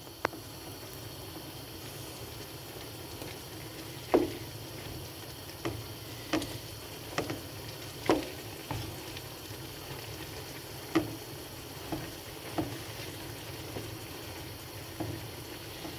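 Wooden spatula stirring rice and vegetables in a frying pan, knocking against the pan a dozen or so times at irregular intervals, over the steady sizzle of the simmering pan.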